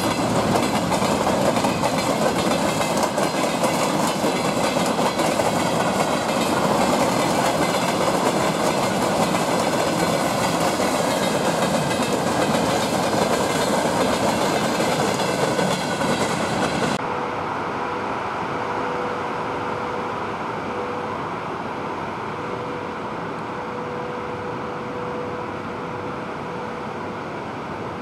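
A train running on the rails, with wheels clicking over the rail joints. About two-thirds of the way through it cuts off abruptly to a quieter, steady hum with a single steady tone in it.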